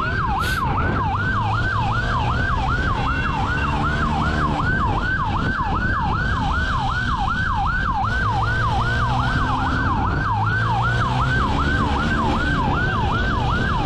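Police motorcycle siren in fast yelp mode, wailing up and down about three times a second, with the motorcycle's engine running underneath and rising and falling in revs during a pursuit.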